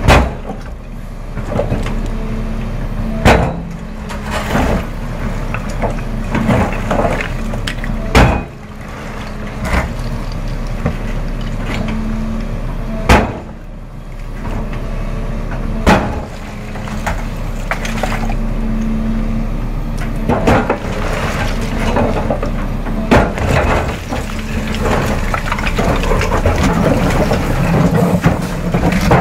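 Volvo EC380 excavator's diesel engine running steadily under hydraulic load while its steel bucket scrapes and pries against slate slabs, with a sharp knock of steel on stone every few seconds.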